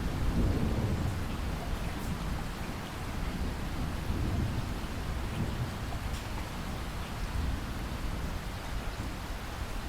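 Steady rain falling with low rolling thunder rumbling under it, swelling early on and again about four seconds in.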